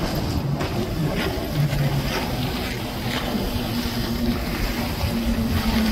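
Jet ski running at speed close by, its engine a steady drone that grows stronger in the second half, over a constant rush of water spray and wind.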